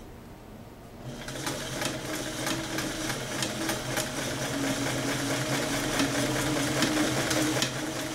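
Freshly serviced vintage Sears Kenmore heavy-duty sewing machine stitching through two layers of denim. It starts about a second in and runs steadily, with a motor hum under a fast, even ticking of the needle and feed, nice and quiet.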